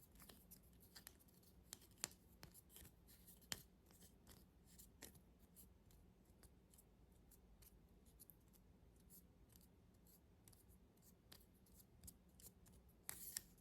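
Faint, irregular clicks and taps of a small plastic toy corn on the cob being handled, with a few sharper clicks among them.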